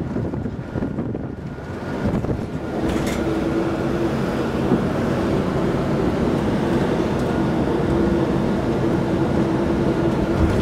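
Road and engine noise heard inside a moving car: a steady rumble that gets louder about two and a half seconds in, with a faint steady hum joining it.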